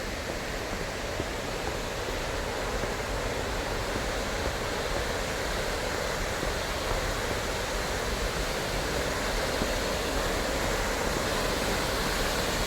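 Miners Falls waterfall running high, a steady rushing of falling water that grows gradually louder.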